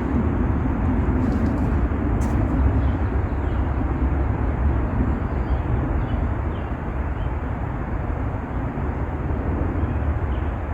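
Steady low rumbling outdoor background noise, easing off slightly after the middle.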